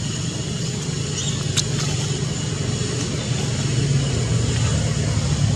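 Steady low motor rumble, such as a nearby vehicle engine running, growing slightly louder in the second half, with a faint click about one and a half seconds in.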